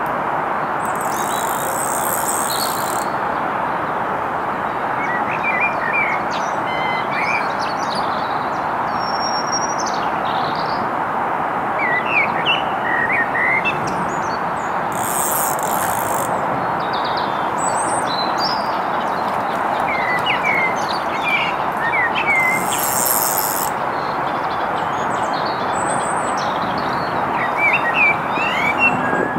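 Small birds chirping in short twittering bursts, several times over, against a steady rushing noise.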